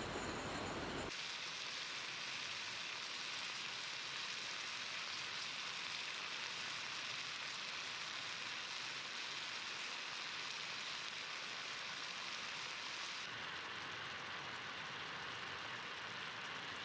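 Meatballs sizzling and bubbling in a frying pan on a portable gas camping stove, a steady hiss that turns a little duller in the last few seconds.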